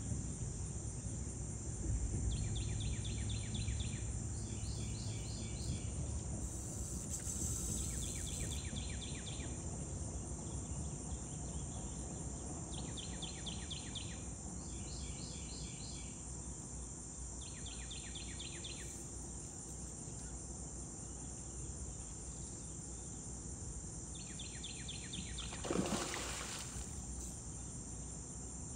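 Riverside ambience: a steady high-pitched insect drone over a low steady rumble, with a bird singing short bursts of rapidly repeated notes every few seconds. About three-quarters of the way through comes one brief whoosh that falls in pitch.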